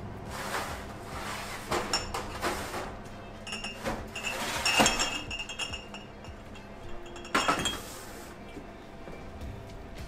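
Sterilized glass jars clinking and knocking against each other and a hard surface as they are taken out of the oven and set down, several separate ringing clinks, over background music.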